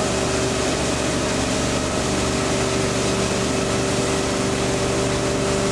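Motorboat engine running steadily under way while towing, over the rushing hiss of its wake.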